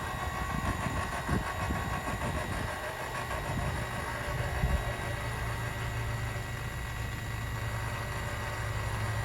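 Trailer's powered tongue jack running steadily as it lowers the tongue down onto the truck's hitch ball to take the pressure off the stabilizer hitch, with the truck idling underneath. A low hum grows stronger about halfway through as the jack takes the load.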